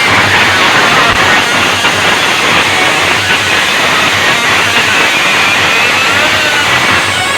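Loud music blaring from a large DJ sound system, a dense and noisy wall of sound.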